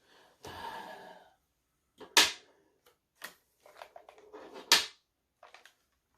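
Action figure packaging being handled: a short rustle of plastic and cardboard, then scattered light clicks and two sharp snaps, about two seconds in and near five seconds, which are the loudest sounds.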